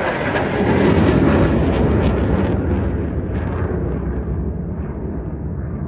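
Fighter jet's engine noise as it passes over and climbs away: loudest in the first second or so, then fading steadily as it draws off.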